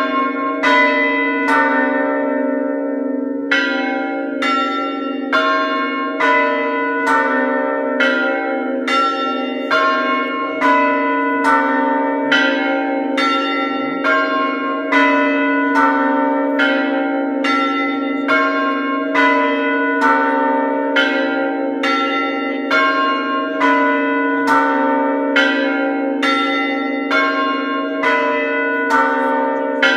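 Eastern Orthodox church bells in a belfry ringing continuously, struck in a rapid repeating pattern of about three strokes every two seconds, with several pitches ringing on over one another.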